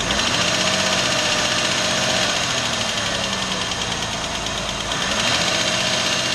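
Car engine running with a rapid, even metallic ticking from the top of the engine: lifter or valve tick, typical of inadequate lubrication or valve clearances that are too large. The engine's pitch rises briefly near the start and again about five seconds in.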